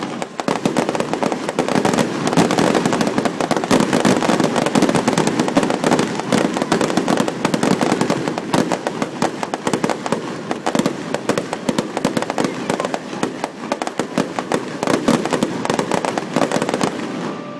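Fireworks finale: a dense, continuous barrage of bangs and crackling, many bursts a second, that stops abruptly shortly before the end.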